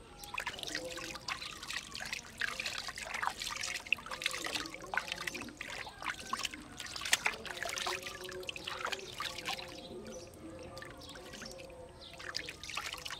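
Bath water being poured and splashed in irregular spurts. The splashing thins out about ten seconds in and picks up again near the end.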